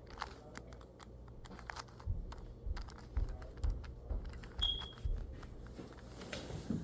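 A 2x2 Rubik's cube being turned through an algorithm: a quick, irregular run of plastic clicks and clacks as the layers are turned. A short high tone sounds about two-thirds of the way through.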